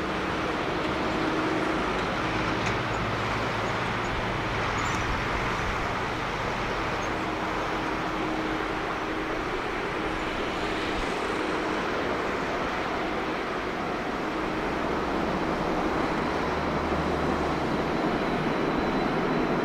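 Airbus A380-841's four Rolls-Royce Trent 970 jet engines heard from a distance as the airliner rolls out along the runway just after touchdown: a steady rushing jet noise that grows a little louder over the last few seconds.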